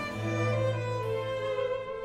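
A baroque string ensemble with harpsichord continuo plays a solo violin line over held cello and double bass notes. The low bass notes stop near the end.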